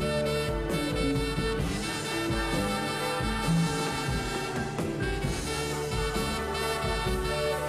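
Instrumental break of a pop band: a saxophone plays a held melody over electric bass guitar and drums, with no singing.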